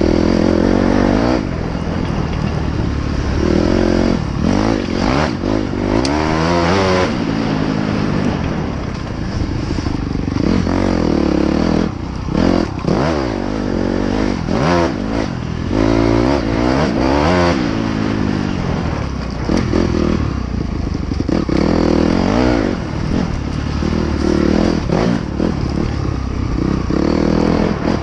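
Dirt bike engine recorded from the rider's helmet, revving up and dropping back again and again while riding, with scattered clattering knocks as the bike goes over rough ground.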